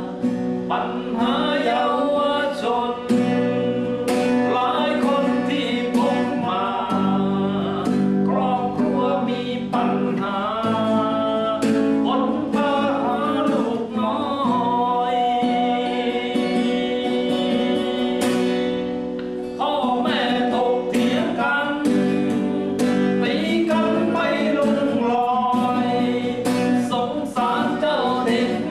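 Closing-credits song: a sung melody over guitar accompaniment.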